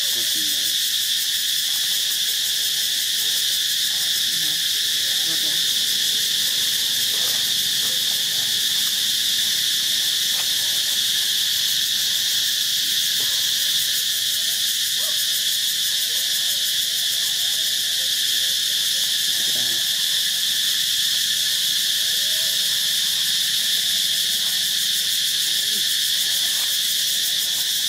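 A steady, high-pitched insect chorus that carries on without a break.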